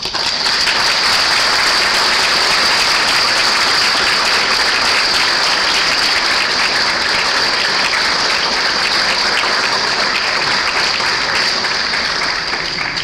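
A congregation applauding loudly. It breaks out at once and dies away near the end.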